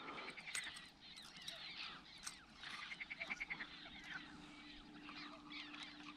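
Faint evening chorus of small animal calls, many short chirps and whistles, with a quick run of rapid pulses about three seconds in and a low steady hum joining from about halfway.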